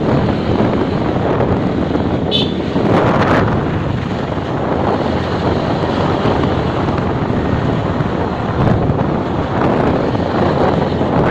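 Wind rushing over the microphone of a moving motorcycle, with road and engine noise beneath. A short high beep comes about two seconds in.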